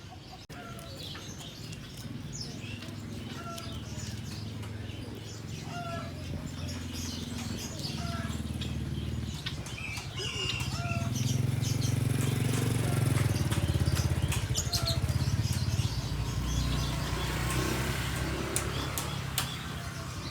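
Many caged songbirds chirping and twittering, with one bird repeating a short call about every two seconds. A low rumble swells from about halfway through and is loudest around two-thirds of the way in.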